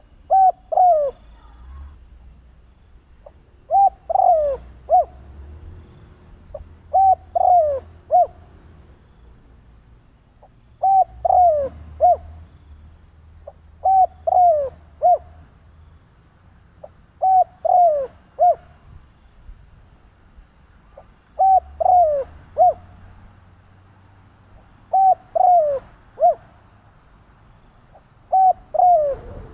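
Spotted dove (Streptopelia chinensis) cooing its three-note call, the middle note sliding down, repeated nine times at even intervals of about three and a half seconds.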